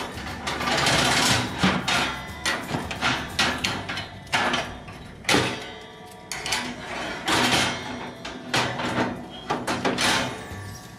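Stainless steel grill grates clanking and scraping against the gas grill's frame and each other as they are set back in place with metal tongs: a string of irregular metallic knocks with a few longer scrapes.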